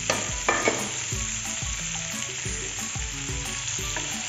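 Paneer cubes and onion-spice masala sizzling in oil in a non-stick frying pan, with a few sharp knocks in the first second as the cubes settle and the pan is worked.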